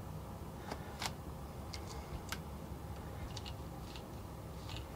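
Light, irregular clicks and taps from a fine paint brush, a plastic lure and its holding clip being handled over a plastic palette, over a low steady room hum.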